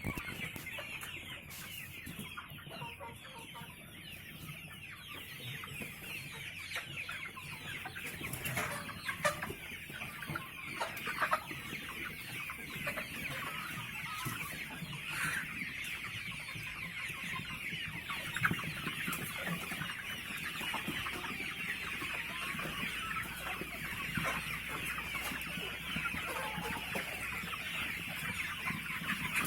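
A large flock of farm chickens calling all at once: a dense, continuous chorus of many overlapping high calls, with a few louder single calls standing out.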